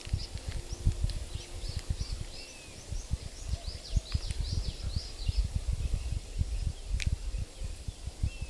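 Small finches calling in a quick run of short, high chirps, thickest through the first six seconds, over low buffeting from wind on the microphone. A single sharp click sounds about seven seconds in.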